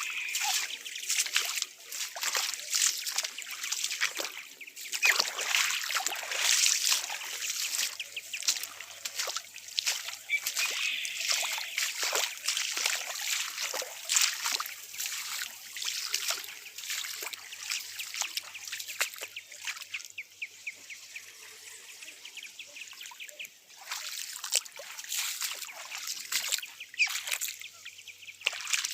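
Floodwater running over a small earthen reservoir's spillway, with a continuous irregular splashing and trickling; the reservoir is overflowing after heavy rain. The splashing eases a little about twenty seconds in and picks up again near the end.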